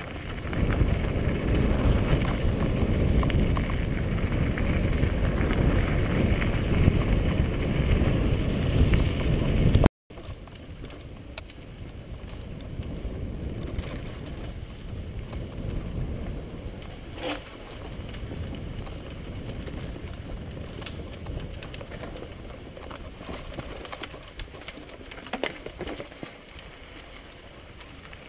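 Mountain bike riding down a dry dirt trail, heard from a camera on the rider: a rumble of wind on the microphone mixed with the rattle of tyres over gravel and roots. It is loud at first, cuts out for a moment about ten seconds in, then comes back quieter, with a few sharp knocks.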